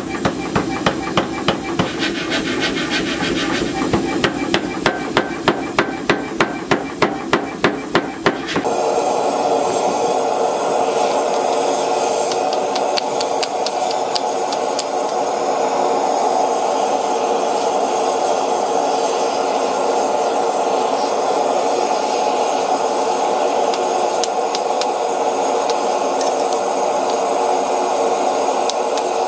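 Power hammer striking a hot scrap-steel billet in a fast, even run of blows, about three a second. About nine seconds in the blows stop abruptly and a steady rushing noise with a hum takes over, with faint scattered scrapes and clicks.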